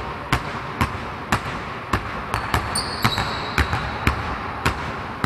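Two basketballs dribbled at once on a gym floor: a steady run of sharp bounces, about two or three a second.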